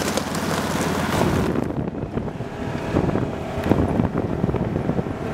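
Side-by-side UTV engine running as the machine drives off across gravel. About a second and a half in, its steady hum gives way to a jostling rumble and wind buffeting the microphone.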